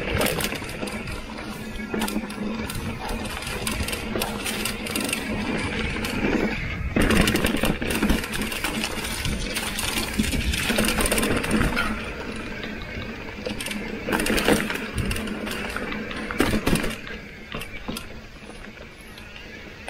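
Mountain bike riding a rough dirt trail: the Industry Nine rear hub's freewheel buzzing while coasting, with frequent knocks and rattles from the bike over roots and bumps.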